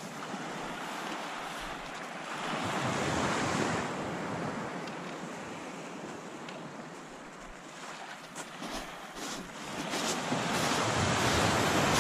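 Surf washing onto a shingle beach, a steady rush that swells twice, with a few light clicks near the end.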